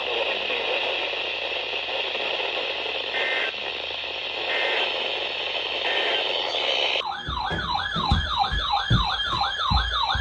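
Radio static hiss with three short, faint tone bursts. About seven seconds in, a loud siren-like emergency alert tone starts, warbling quickly up and down about three times a second, with low thumps under it.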